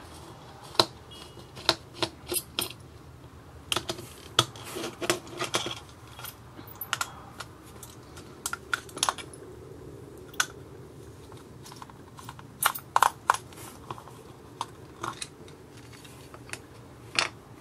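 Small screwdriver prying open a plastic charger housing: irregular clicks and ticks of metal on plastic, with light scraping, as the two shell halves are worked apart.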